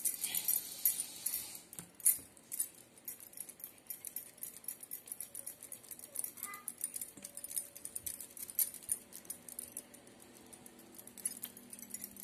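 Bangles clinking and jingling on the wrist as hands pinch off and shape a ball of dough, in quick irregular light jingles that are busiest in the first couple of seconds.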